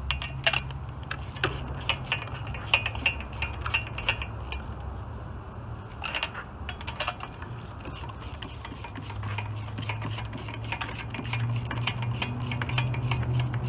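Hand ratchet clicking in quick runs, with light metal clinks of the socket and extension, as spark plugs are tightened into the cylinder head. A steady low hum runs underneath and grows louder near the end.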